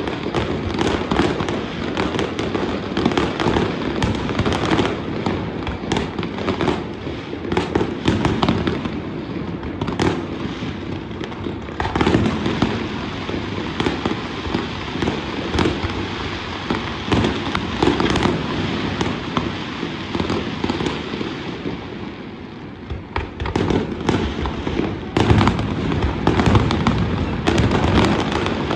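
Fireworks display going off continuously: a dense stream of bangs and crackling bursts, easing off for a moment about two-thirds of the way through, then building up louder again near the end.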